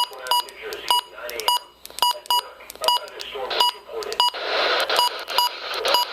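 A weather radio's electronic beeper sounding short, shrill beeps, two or three a second at uneven spacing, over a faint voice. A hiss of static comes up about four seconds in.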